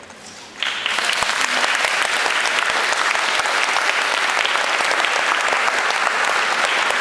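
Audience applauding, breaking out suddenly about half a second in and then holding steady.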